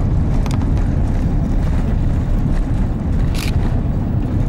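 Steady heavy rumble in the cabin of an Airbus A350-900 rolling on the runway just after landing. Two brief hisses come through, one about half a second in and a louder one near the end.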